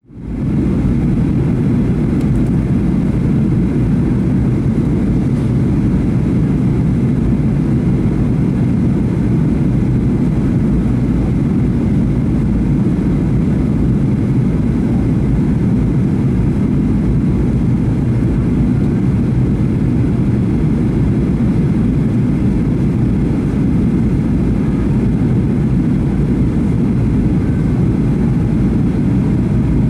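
Steady low rumble of a Boeing 737-800 in flight, heard from inside the passenger cabin: engine and airflow noise, fading in over the first second and then holding even.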